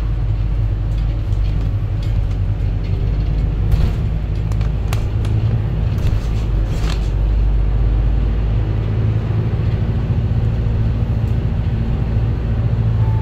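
City bus driving, heard from inside the passenger cabin: a steady low engine and road rumble, with a few short rattles and knocks around the middle.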